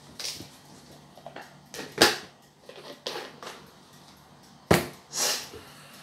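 Seasoning jars being handled on a kitchen counter: scattered small clicks and rustles of lids and jars, with two sharp knocks, about two seconds in and near the end, as jars are set down.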